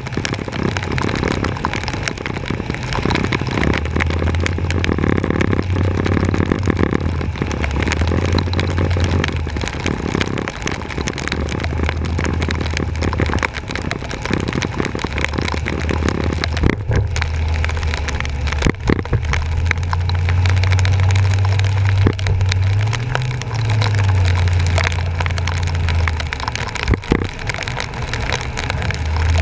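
Truck driving through rain-flooded streets, heard from its front bumper: a low engine drone that comes and goes and shifts in pitch, over a steady hiss of water and tyres, with scattered sharp clicks.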